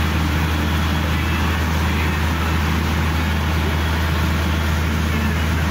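A tour schooner's inboard engine running steadily, a constant low drone with a broad hiss over it.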